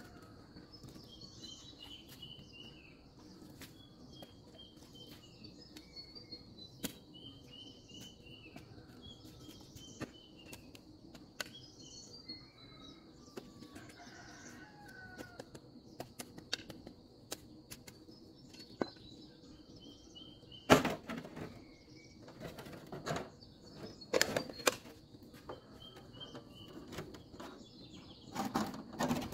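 Birds chirping in short, repeated phrases of quick high notes, over scattered small clicks. In the last third, a few loud, brief knocks or rustles stand out above the birdsong.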